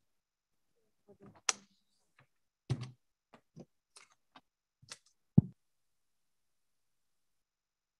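A scattered run of about ten short clicks and knocks over four seconds, two of them much sharper than the rest: keyboard, mouse and desk handling at a lectern computer, picked up by a room microphone.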